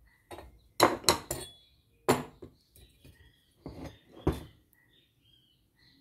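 Metal parts knocking and clinking as a homemade steel pulley puller and a washing-machine pulley are set down on a workbench: a handful of sharp clacks, the loudest about a second in, again near two seconds and around four seconds. Faint bird chirps in the background.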